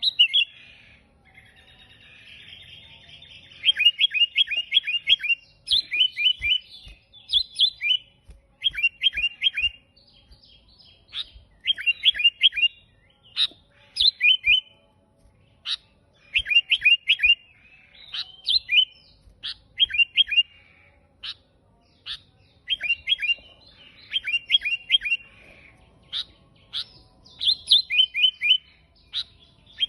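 Sooty-headed bulbul (kutilang) singing: quick runs of four to six short, bright chirped notes, repeated every second or two, with a rasping buzz near the start.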